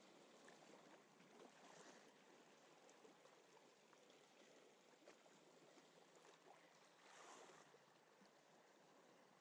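Very faint wash of small sea waves over shoreline rocks, with a slight surge about seven seconds in.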